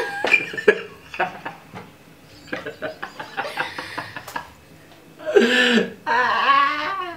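People laughing: short breathy snickers, then a longer laugh with a wavering pitch about five seconds in.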